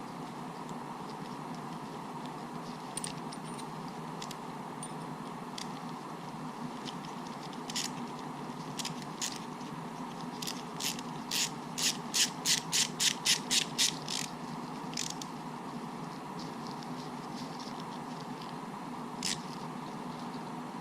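Small screw in an RC truck's front differential being driven back in and tightened with a hand tool: scattered sharp clicks, then a run of about a dozen even clicks at about three a second around the middle. A steady hum runs underneath.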